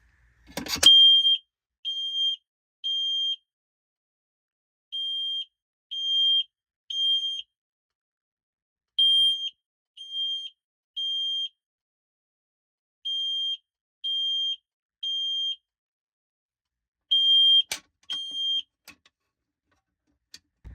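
Fire alarm sounder beeping a high tone in the temporal-three pattern: three short beeps, a pause, then three more, the standard evacuation signal. It runs through four full rounds, then stops after two beeps of the fifth. A sharp click comes as it starts and another shortly before it stops.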